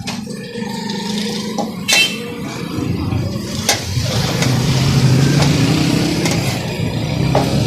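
A motor engine running close by, its low hum swelling through the middle and easing off near the end, with a few sharp clicks over it.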